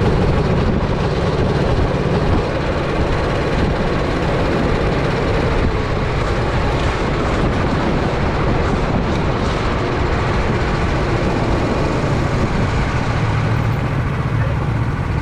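Honda GX270 single-cylinder four-stroke engine of a SODI RT10 rental kart running, heard onboard. The sound is steady and sits mostly in the low range.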